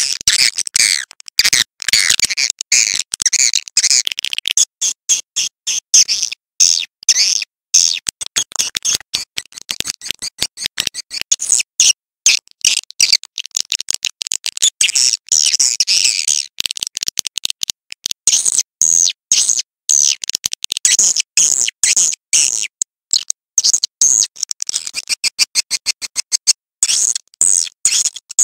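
Edible-nest swiftlet calls: dense, high twittering chirps mixed with rapid clicking, running on with only brief breaks. This is the kind of looped swiftlet call recording played to lure swiftlets into a bird house.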